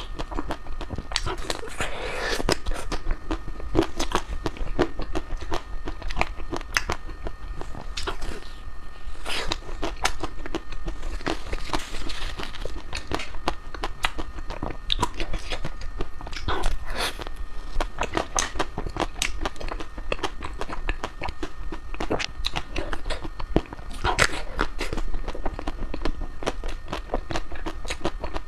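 Close-up biting and chewing of crispy ice cream: a steady, irregular run of crunches.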